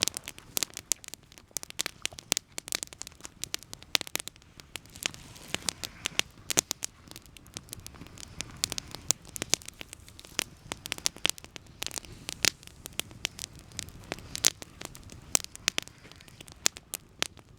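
Campfire crackling, with irregular sharp pops and snaps of burning wood, several a second, over a soft low rush of flame.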